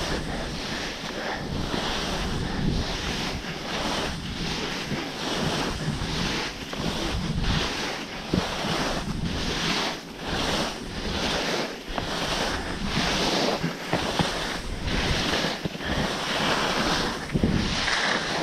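Skis hissing and scraping through heavy, wet spring snow, surging with each turn about once a second, mixed with wind rushing over the microphone.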